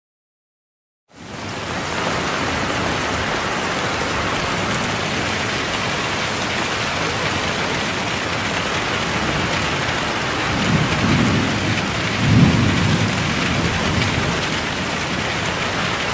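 Steady rain with two low rumbles of thunder in the second half. The rain comes in about a second in, after a moment of silence.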